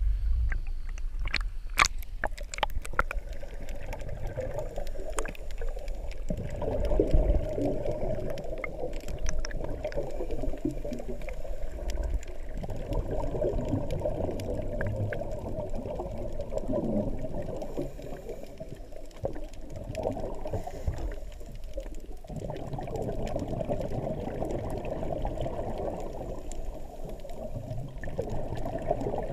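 Water gurgling and bubbling, muffled as heard through a GoPro's waterproof housing underwater, with sharp splashes in the first few seconds as the camera breaks the surface.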